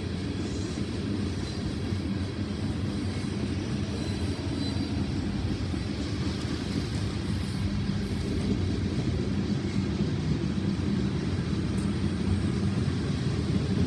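Long BNSF freight train rolling past, a steady low rumble of its cars on the rails that grows slightly louder toward the end.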